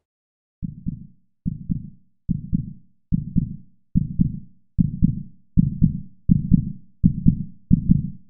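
Heartbeat sound effect: low double thumps that speed up and grow louder, from a beat a little under every second to nearly two a second.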